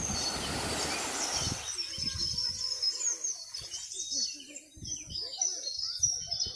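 A chorus of small birds chirping and twittering in quick, high calls that overlap without a break. A rushing noise fills the first two seconds, and low gusts of wind buffet the microphone now and then.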